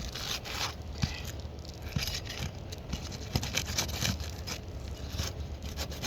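Asphalt roof shingles being worked loose from their nails: irregular scraping and tearing with a few knocks. The tearing is the nail heads pulling through the shingle.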